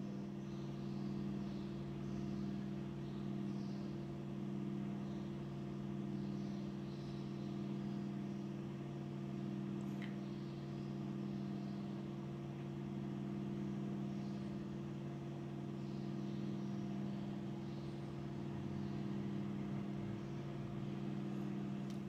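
Steady low electrical hum from the switched-on klystron power supply and bench equipment: a few even tones that swell and fall slowly and regularly. One faint tick about ten seconds in.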